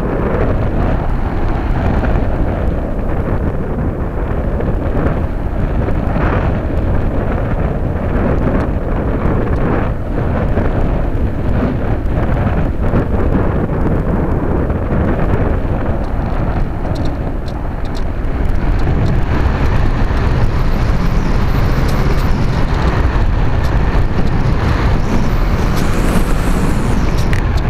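Wind rushing over a Radian powered glider's onboard keychain camera in flight, a steady, loud, low rumble. It grows louder about two-thirds through as the glider noses down into a steep dive.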